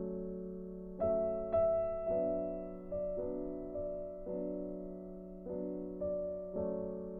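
Slow, gentle background piano music: notes struck every second or so and left to fade, over a steady low held tone.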